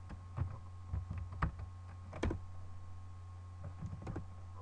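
Keystrokes on a computer keyboard: a handful of separate key presses, the loudest about two seconds in and a few more close together near the end, over a steady low hum.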